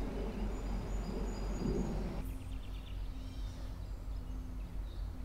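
Low rushing noise of creek water that cuts off abruptly about two seconds in. After that a small bird chirps in short quick trills over a steady low hum.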